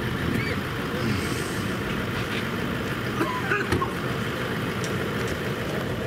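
Street noise dominated by a steady low motor-vehicle rumble, with faint voices in the background.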